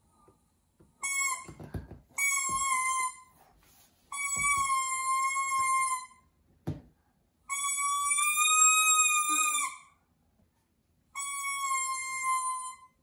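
A baby's plastic toy trumpet blown in five separate toots, all on the same note. The toots range from a short one to blasts of about two seconds.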